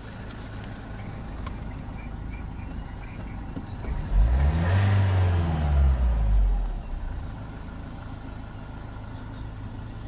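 Opel Vivaro van engine idling, heard from inside the cab. It is revved once about four seconds in, held for a couple of seconds, then drops back to idle near seven seconds.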